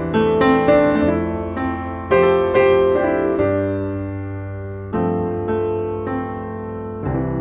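Slow piano music: single notes and chords struck every half second or so, each ringing out and fading over held low bass notes.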